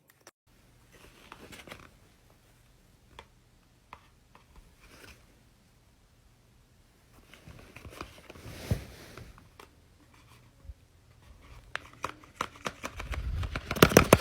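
Faint paper handling: soft rustling and crinkling with scattered light clicks, growing louder and busier in the last second or so.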